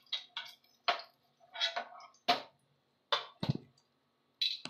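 Steel spoon clinking against a non-stick frying pan and a steel plate as fried paneer cubes are lifted out: about eight sharp clinks, one with a duller thud about three and a half seconds in.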